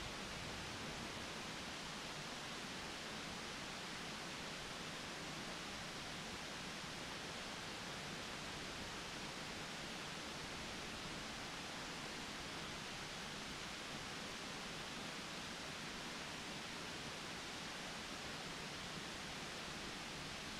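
Steady, even hiss with no distinct sounds in it.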